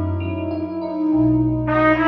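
Instrumental backing music with a stepping bass line in a short break between cornet phrases; the cornet comes back in with a held note near the end.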